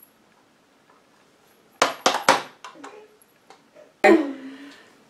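A woman clearing her throat: a few short rough hacks about two seconds in, then a louder, rasping clear about four seconds in, its pitch dropping.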